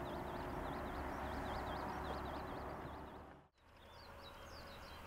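Outdoor ambience: a steady rushing noise with a bird calling over and over in quick high chirps. The sound drops out briefly about three and a half seconds in, then the chirping carries on.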